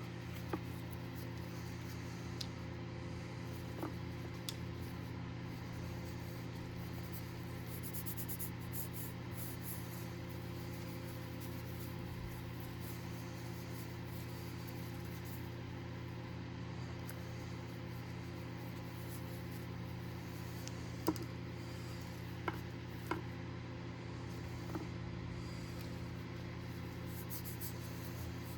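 A steady low hum, with a few light clicks and taps scattered through it, a cluster of them about three quarters of the way in.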